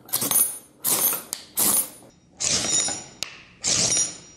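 Ferrocerium fire-steel rod scraped hard five times along the sharp-edged, unpolished spine of an HX Outdoors TD-09 bushcraft knife, each stroke a short rasping scrape. The square spine throws sparks well off the rod.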